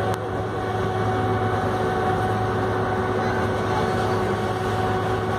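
A ferry's engine running steadily: a constant drone with a fixed, unchanging hum, heard from the deck. A faint click sounds just after the start.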